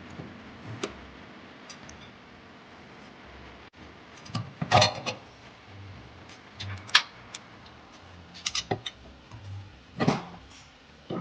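Metal tools and parts clinking and knocking as they are handled during a wheel bearing repair, with scattered sharp clanks, the loudest about halfway through and near the end.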